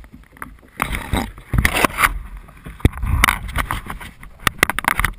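Irregular rustling, scraping and knocks of a kayaker moving about and handling a rope close to the microphone, with a quick run of sharp clicks near the end.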